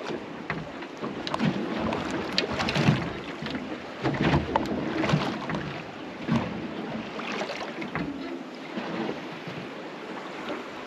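Water slapping irregularly against the hull of a small drifting boat, with wind noise on the microphone.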